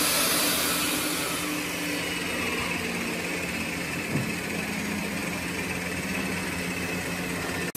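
Handheld electric belt sander running on a hardwood box beam, a steady machine noise whose motor tone eases after about two seconds while the noise goes on. A short knock about four seconds in.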